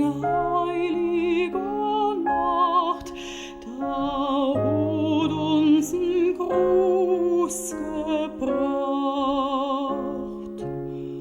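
A soprano sings a song in long held notes with a strong vibrato, over a soft instrumental accompaniment.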